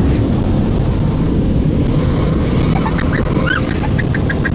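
Automatic car wash running over the car, heard from inside the cabin as a loud, steady low rumble. From about halfway on, a run of short squeaky sounds, several a second, rides over it.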